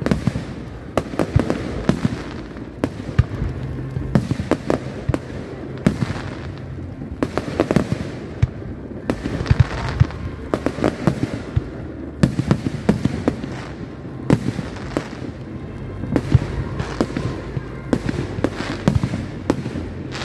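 Aerial fireworks display: a continuous, irregular string of sharp bangs from bursting shells, several a second at times.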